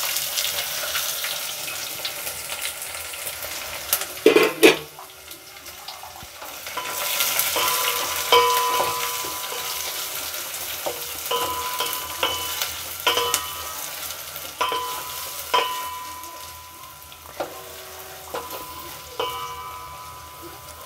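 Freshly added sliced onions sizzling in hot ghee in a steel pot, stirred with a spatula that scrapes and knocks against the pot. There are a couple of louder knocks about four seconds in. From about eight seconds on, the spatula strikes the pot roughly once a second, each strike ringing briefly.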